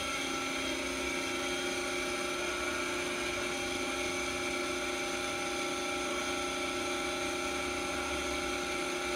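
Giddings and Lewis PMC-50 CNC horizontal boring mill running with a steady whine of several tones as its Z and W axes travel.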